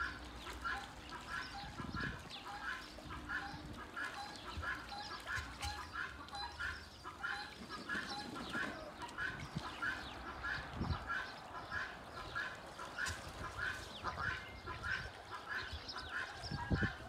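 Domestic ducks quacking in a steady, repeated run of calls, about two or three a second, with water splashing and wing-flapping as they bathe in a shallow puddle.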